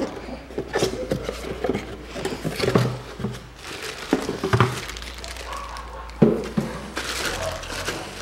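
Cardboard box flaps being opened and handled, with scattered knocks and taps, then a clear plastic bag crinkling near the end as the boxed water pump is pulled out in it.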